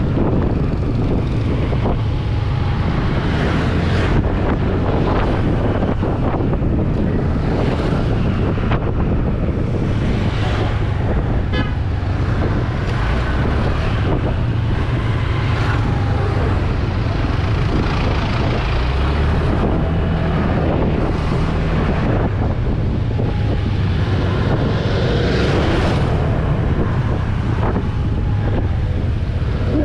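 Honda scooter's engine running steadily under way, with wind buffeting the microphone and the noise of passing traffic. A short rapid ticking sounds about twelve seconds in.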